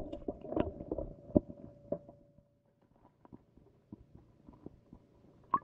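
Irregular knocks and clicks heard through an underwater camera beneath the ice: a dense cluster in the first two seconds, then scattered faint ticks and one sharper click near the end, over a steady faint hum.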